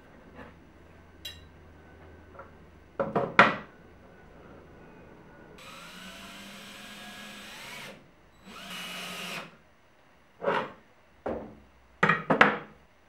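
Cordless drill driving a screw into pine in two runs, the first about two seconds long with its motor pitch rising, then a short second burst. Louder sharp knocks of wood being handled and set down on the workbench come before and after the drilling.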